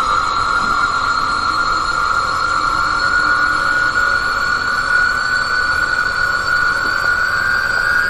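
A sustained high-pitched tone that slowly rises in pitch, a tense sound-design drone with no speech over it.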